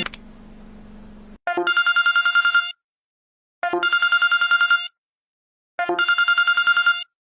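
Phone ringtone imitating a classic telephone ring: three rapid trilling rings of about a second each, about two seconds apart. A quiet low hum comes before the first ring.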